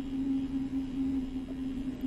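A vehicle's motor humming at a steady pitch over a low rumble.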